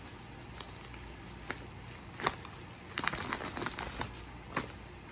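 Paper and plastic packaging being handled: scattered crinkles and sharp clicks, bunching together about three seconds in.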